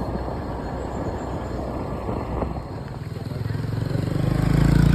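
Motor scooter engine running with road and wind noise; the engine's low hum grows louder through the second half and peaks near the end.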